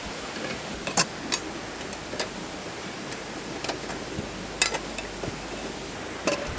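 A few scattered, irregular clicks and knocks over a steady background hiss.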